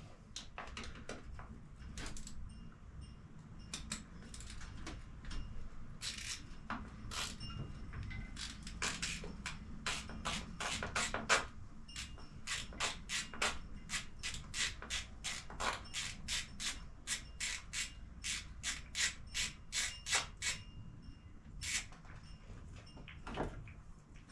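Ratchet wrench clicking in short repeated strokes, about two a second in the busiest stretch, as the 12 mm oil drain plug of a Yamaha YZ250's gearbox is loosened. A faint low hum runs underneath.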